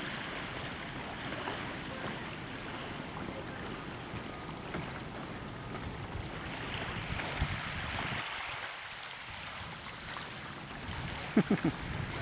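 Steady outdoor wash of small waves lapping in shallow water, with wind on the microphone. Near the end come three quick, short, sharp sounds close together.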